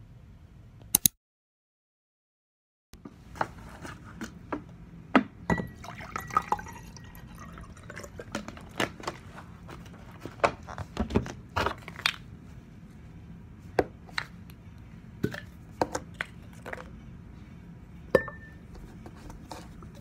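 Water poured from a plastic bottle into a tall glass, among many sharp clicks and knocks as the bottle, the glass and a plastic tube of effervescent vitamin tablets are handled on a wooden table. A short silent gap comes about a second in.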